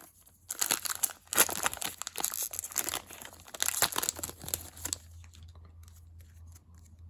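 Crinkling and tearing of foil hockey card pack wrappers as packs are ripped open, in dense rustling bursts that give way about five seconds in to quieter handling of cards.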